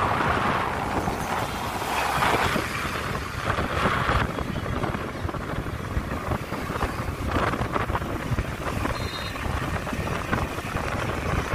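Wind rushing over a phone microphone on a moving scooter, surging in gusts every couple of seconds over steady road and traffic noise.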